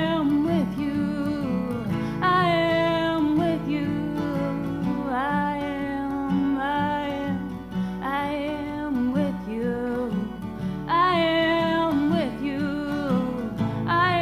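Song played on acoustic guitar, with a voice singing long, wavering held notes over steady strummed chords.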